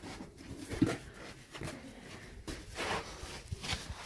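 Irregular scuffs, scrapes and a few short knocks of someone clambering up rock, with handling noise on the phone's microphone.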